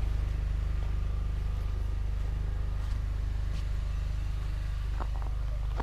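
An engine running steadily at idle, a low even drone, with a few light clicks near the end.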